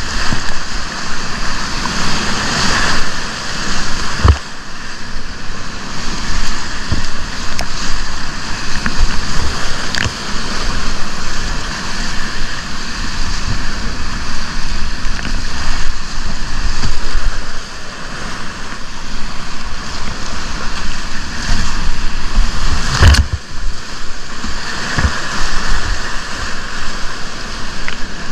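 Whitewater rapids rushing and splashing steadily around a kayak, with a few short low thumps, the loudest about 23 seconds in.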